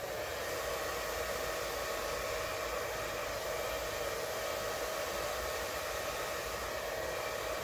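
Hair dryer running steadily, blowing wet acrylic paint across a canvas: a constant rush of air with a faint, even motor whine.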